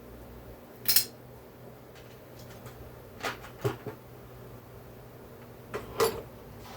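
Small metal parts clinking and knocking against a hard surface during a chainsaw teardown, four or five separate sharp hits, the loudest about a second in and near the end, over a steady low hum.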